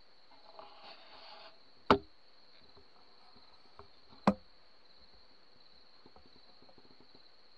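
Steady high chirring of crickets, with two sharp, loud clicks about two and a half seconds apart and a brief faint rustle before the first.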